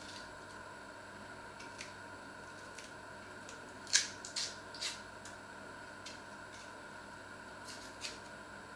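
Small kitchen knife cutting pieces off food held in the hand over a steel pot: a few sharp clicks, three close together about four seconds in and one more near the end, over a faint steady hum.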